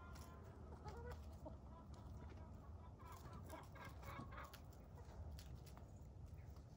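Several domestic chickens clucking quietly as they forage, with scattered short clicks and rustles.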